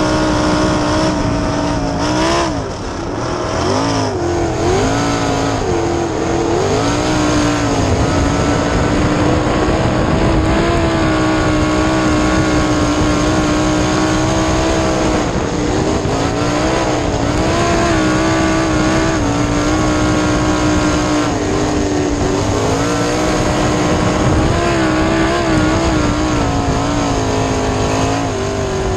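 A 410 cubic-inch V8 sprint car engine at racing speed, heard from the cockpit, its note rising and falling as the throttle is lifted and reapplied through the corners. There is a short dip in the engine note about two and a half seconds in, and the pitch climbs near the end.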